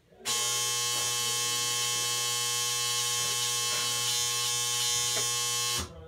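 Washing machine buzzer sounding one long, steady electric buzz for about five and a half seconds, starting and cutting off abruptly.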